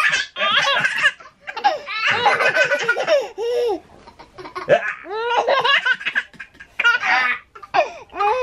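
A baby laughing in several separate bursts, a second or so apart.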